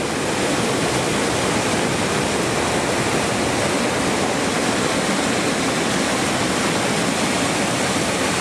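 Flood-swollen creek rushing over boulders: a loud, steady rush of whitewater.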